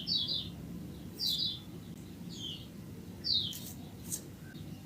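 Small birds chirping: short bursts of quick, high chirps about once a second, over a faint low hum.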